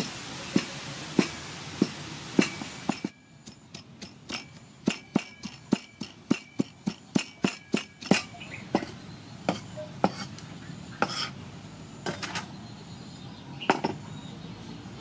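A kitchen knife and then a cleaver chopping tomato on a thick wooden chopping block, the blade knocking sharply on the wood. At first the strokes come about one every half second, then in a quicker run of about three a second, then scattered.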